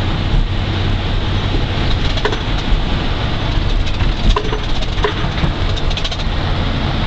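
Road and engine rumble heard inside a moving vehicle's cabin, steady throughout, with a few short knocks scattered through it.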